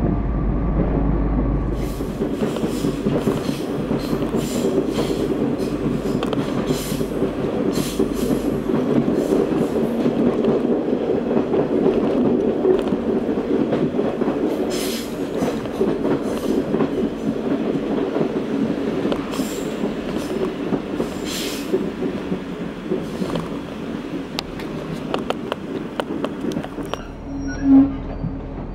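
Class 142 Pacer diesel railbus running along the line: steady running noise with repeated sharp clicks and knocks from the wheels on the track. A short loud sound comes about a second before the end.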